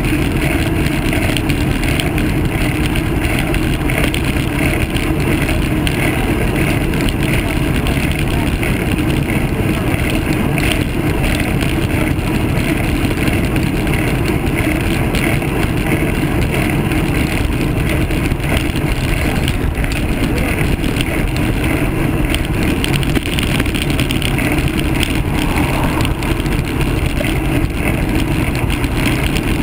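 Steady wind rumble on the microphone of a handlebar-mounted camera on a road bike riding at speed, mixed with road noise.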